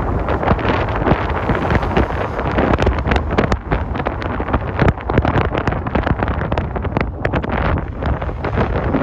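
Strong wind buffeting the microphone in irregular gusts: a loud, uneven low rumble with frequent crackles.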